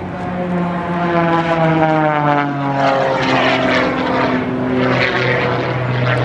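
Propeller-driven aerobatic airplane's piston engine flying past, its note falling in pitch as it goes by, then holding steady at the lower pitch.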